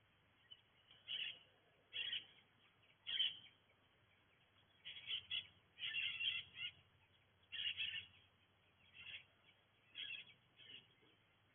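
Birds calling in short chirping phrases, roughly one a second, with brief pauses between them.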